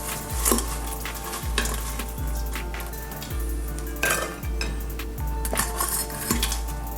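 Metal kitchen utensils clinking and scraping against dishes and cookware, with background music carrying a steady beat about every 0.7 seconds.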